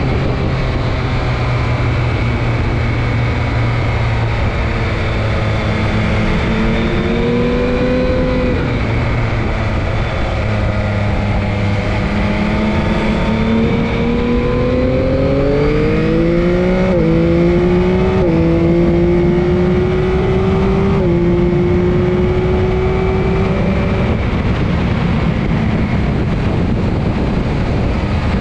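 Motorcycle engine running hard on track from onboard, its pitch rising as it accelerates out of a corner and stepping as it shifts up a gear, over heavy wind noise on the microphone.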